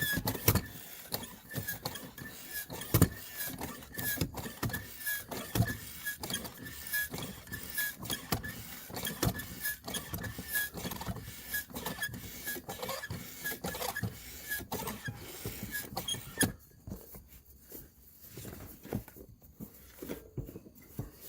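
Hand-operated bicycle pump worked in repeated strokes, with a faint squeak on each stroke, putting a little air into a fat-bike inner tube to give it shape before it goes into the tyre. The pumping stops several seconds before the end.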